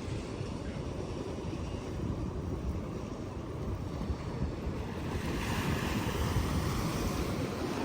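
Sea waves washing onto a beach, with wind buffeting the microphone as a steady low rumble; the hiss of a wave swells about five seconds in.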